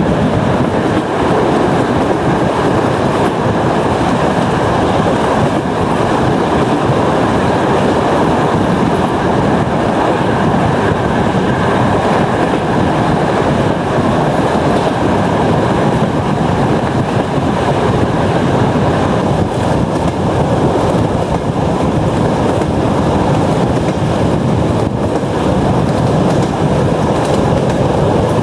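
Passenger train running at speed, heard from an open coach window: a loud, steady rumble of wheels on the rails mixed with rushing air.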